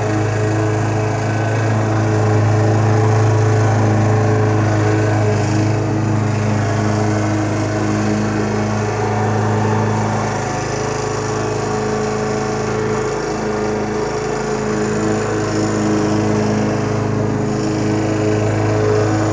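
Craftsman walk-behind gas rotary lawn mower running steadily at a constant pitch while cutting grass. It grows a little quieter in the middle as it is pushed farther off, then louder again.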